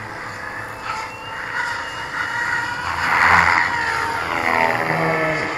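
Large RC helicopter flying: the whine of its motor and rotor head rises and falls in pitch as it climbs and swoops. It is loudest about three seconds in, then glides down in pitch.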